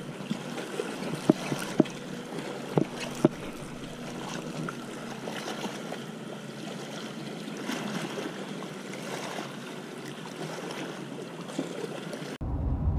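Steady wind and water noise at the shore, with a few sharp knocks in the first few seconds. Near the end it cuts abruptly to the low rumble of a car on the road.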